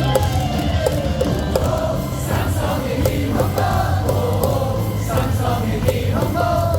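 Baseball crowd singing a cheering chant together over loud amplified stadium music with a steady bass.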